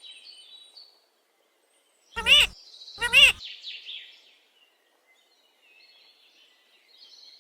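Pet parrot giving two loud, harsh calls about two and three seconds in, each a rapid string of rising-and-falling notes. Fainter chirping comes before and after.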